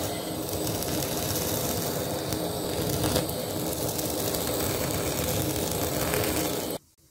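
Handheld kitchen blowtorch burning with a steady hiss as its flame sears the skin of fish nigiri. The hiss stops abruptly just before the end.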